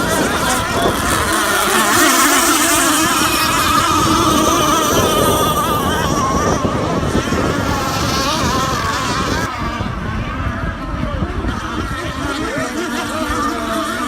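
Radio-controlled race boats racing, their small engines whining at high revs with the pitch wavering up and down as they run the course.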